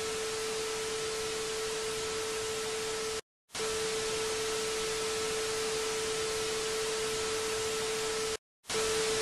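Television test-pattern sound effect: a steady test tone over static hiss, cutting out for a moment twice, about three seconds in and near the end.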